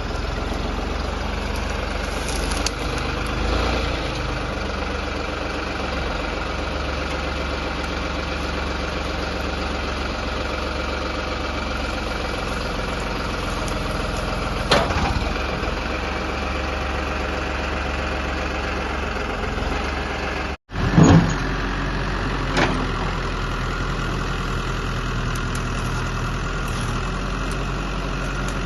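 Heavy machine's diesel engine running steadily at idle. There are a few short knocks and clatters about fifteen seconds in and again around twenty-one seconds, the loudest just after a brief break in the sound.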